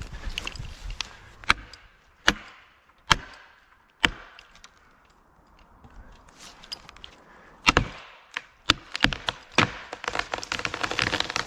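Sharp single blows, about one a second, on felling wedges driven into the cedar's back cut, a pause, then a few more strikes. Near the end a dense crackling of breaking wood and branches builds as the tree begins to give.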